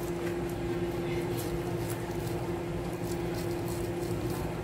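A steady machine hum holding one constant tone, under faint soft ticks and squelches of a fork pulling apart very tender braised pork leg.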